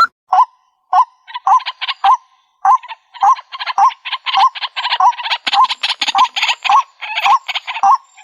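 White-breasted waterhen (ruak-ruak) calling: a rising note repeated about twice a second. From about a second and a half in, a fast, harsh chatter runs over it.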